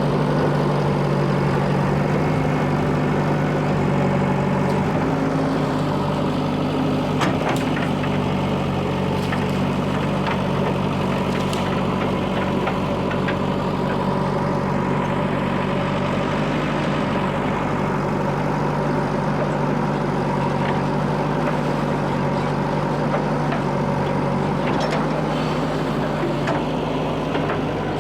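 Diesel engine of heavy machinery running steadily near idle, with a few faint knocks.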